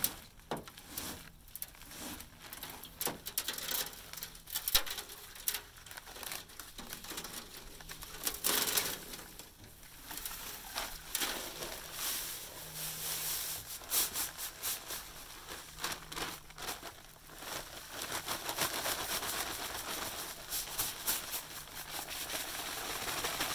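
Paper bag of Pro Finish 5000 concrete mix crinkling and rustling as it is handled and opened, then the dry mix pouring out of the bag into a wheelbarrow, a longer rush of noise through the second half.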